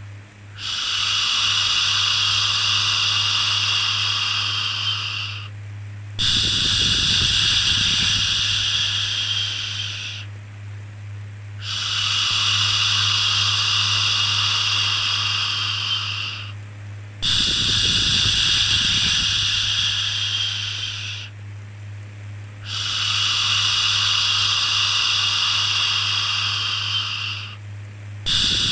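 A person shushing, "shhh", in long, even hisses of about four to five seconds each with short breaks between them, six times over, as a soothing sound for a baby.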